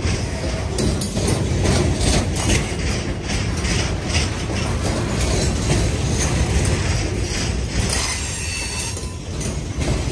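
Freight train of a lumber train rolling by with a steady rumble and irregular clanks and clicks from wheels and cars on the rails. A faint, brief wheel squeal comes in near the end.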